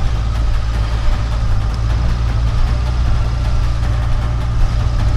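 Engine of a small off-road SUV running at low speed close by: a steady, low drone.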